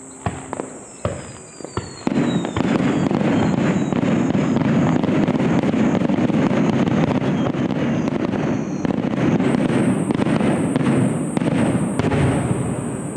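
Fireworks going off: a few separate bangs in the first two seconds, then a loud continuous barrage of rapid bursts that runs on without a break.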